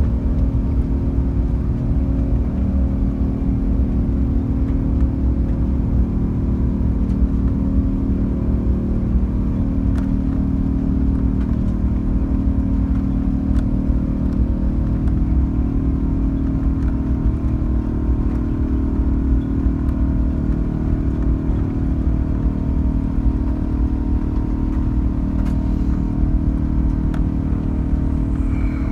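Engine Alliance GP7200 turbofans of an Airbus A380 running steadily at raised power, heard inside the cabin: a loud low rumble with several steady droning tones.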